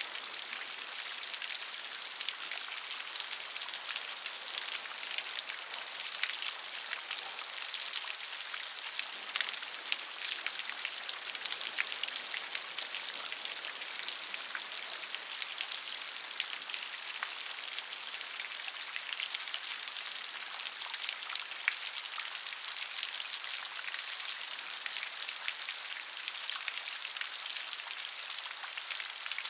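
Steady rain falling, an even hiss dotted with many small drop ticks and no change in strength.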